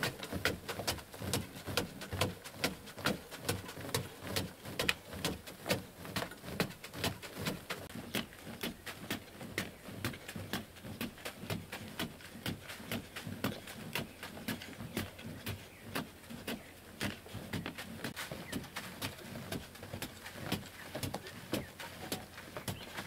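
Digging tool striking and scraping into a hard clay-earth wall in a steady run of sharp blows, about three a second.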